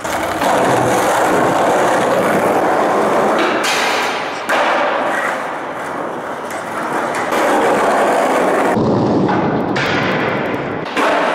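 Skateboard wheels rolling on a concrete floor and trucks grinding along a ledge, heard as a loud, continuous rough noise broken into several short clips that change abruptly.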